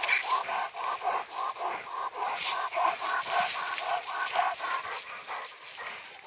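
Coonhounds worrying a raccoon they have pinned, biting and shaking it. A quick, regular sound comes about three times a second and fades near the end.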